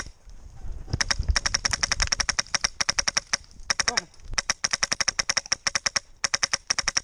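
Airsoft guns firing on full auto: long bursts of rapid, evenly spaced snapping shots, about a dozen a second, broken by short pauses.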